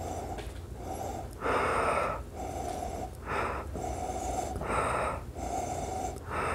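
A man sniffing beer with his nose inside a glass mug. There are four deep sniffs about a second and a half apart, with fainter breathing between them.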